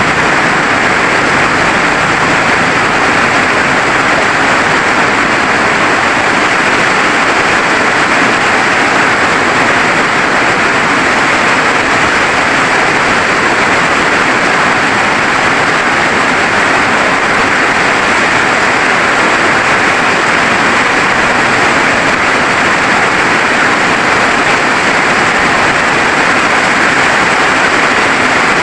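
Heavy rain falling, a steady, dense hiss that does not let up.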